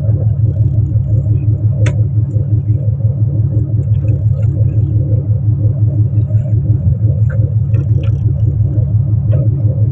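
Fishing boat's engine running steadily with a low, even throb. A single sharp click sounds about two seconds in, and a few faint clicks follow later.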